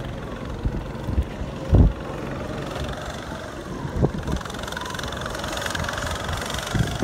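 Small go-kart engine running at a distance as the kart drives through a cone slalom, with a loud low thump about two seconds in.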